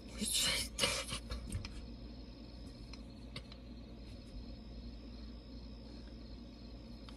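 Crickets chirping in a steady, pulsing high trill that pauses for about a second around the middle. A few brief rustles and taps in the first second or so are the loudest sounds.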